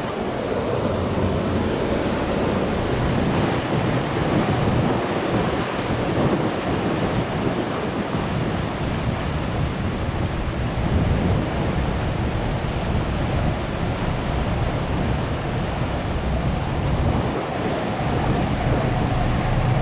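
Wind buffeting the microphone and water rushing past a boat under way: a steady, loud rush heaviest in the low end.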